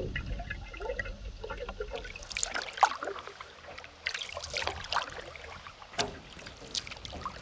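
Wooden paddle dipping into river water as a boat is paddled, with irregular splashes and drips, the loudest about three seconds in.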